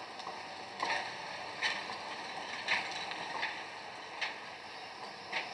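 Dresden NGT D8DD tram's wheels knocking over the rail joints as it rolls slowly past: about six sharp clacks, roughly one a second, over a steady hiss.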